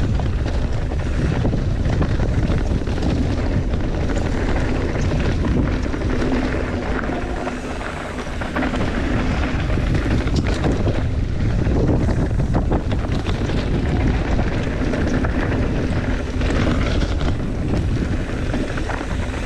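Mountain bike rolling fast down a rocky, gravelly trail: tyres crunching and rattling over loose stones with the bike clattering on every bump, under steady wind buffeting the microphone.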